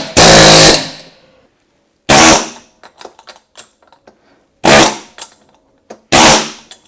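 Pneumatic air chisel hammer firing in loud bursts against a seized steel hub on a wheelchair motor shaft. One burst runs on until about a second in, then three short bursts follow a couple of seconds apart.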